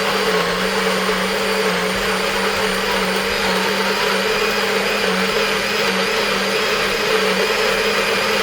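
Countertop blender running steadily at full speed, blending a pancake batter of oats, bananas, coconut milk and medjool dates.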